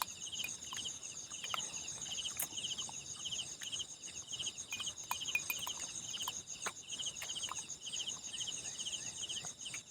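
Night insects calling: a pulsed chirp repeating about one and a half times a second over a continuous high trill, with scattered faint clicks.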